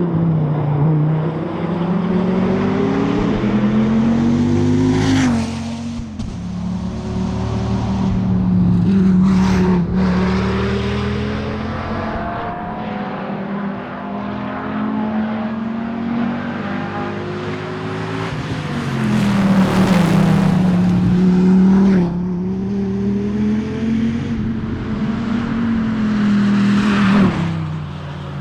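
Dodge Viper ACR's 8.4-litre V10 driven hard on a tarmac rally stage. The engine note climbs under acceleration and drops sharply at several gear changes, then falls away as the car slows for corners.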